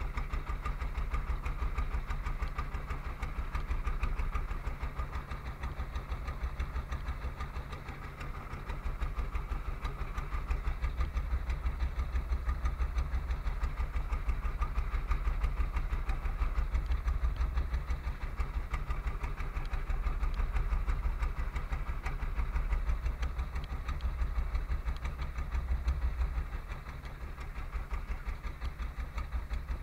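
Small wooden fishing boat's engine running steadily at low revs, a fast even beat of low pulses.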